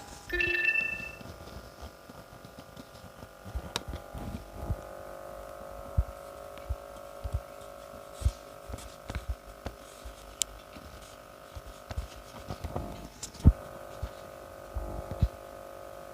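Kittens wrestling and playing: scattered soft thumps and scuffs, with one sharper knock about 13 seconds in, over a steady hum.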